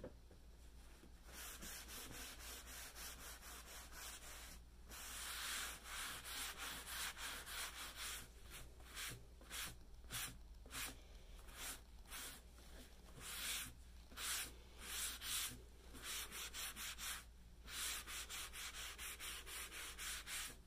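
Paper towel rubbing back and forth over a freshly stained wooden tabletop, wiping back the excess oil-based stain along the grain. A steady run of soft rubbing strokes, about two a second, starting about a second in and growing stronger about five seconds in.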